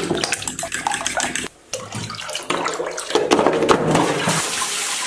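Clicks and knocks of handling, then just after four seconds in water starts running steadily with an even rushing hiss.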